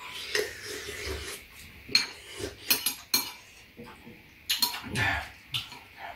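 Spoons and chopsticks clinking and scraping against bowls of soft tofu stew during a meal: irregular sharp clinks, several close together about halfway through and again near the end.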